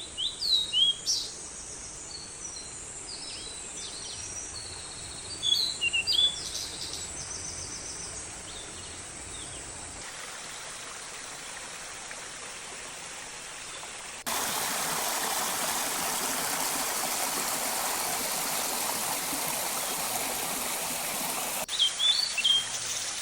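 Waterfall rushing steadily, with small birds chirping over it in the first several seconds and again near the end. About halfway through the water grows much louder for several seconds, starting and stopping abruptly.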